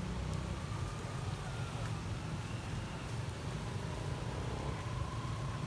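Steady outdoor background noise: a low rumble with an even hiss above it.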